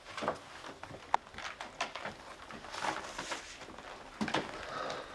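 Faint, irregular rustling and small knocks of handling in a small room, with one sharp click about a second in.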